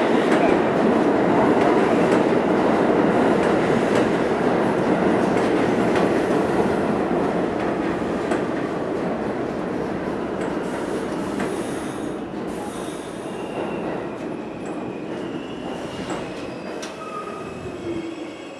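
R46 subway train rolling into the station and braking: steel wheels rumbling and clacking on the rails, fading steadily as it slows, with thin brake and wheel squeals appearing in the last few seconds as it comes to a stop.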